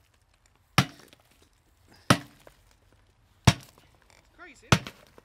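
Sledgehammer blows on an old safe lined with concrete and wood, breaking into it: four heavy strikes about one and a quarter seconds apart, each a sharp crack with a brief rattle of debris.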